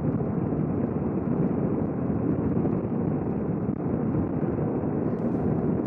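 Steady rush of wind and road noise from riding a Suzuki V-Strom motorcycle at about 100 km/h, picked up by a microphone inside the rider's helmet.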